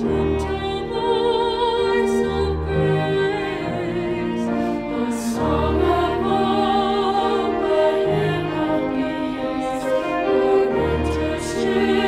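Women's voices singing a slow, gentle carol with vibrato, over low instrumental notes that come in every two to three seconds.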